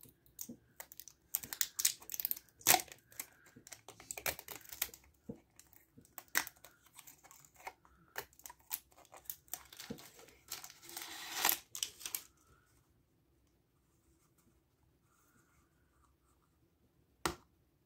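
Plastic shrink-wrap sleeve torn and peeled off a small plastic toy capsule by its easy-open tear strip: irregular crinkling and crackling, loudest about ten to twelve seconds in, then stopping. A single click near the end.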